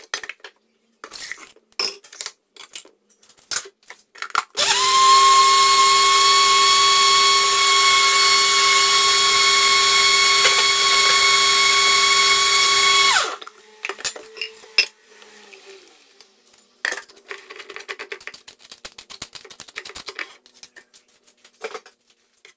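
Countertop blender puréeing peaches with milk: the motor spins up with a brief rise in pitch, runs at a steady high whine for about eight seconds, then cuts off suddenly. Scattered clicks and knocks come before and after it.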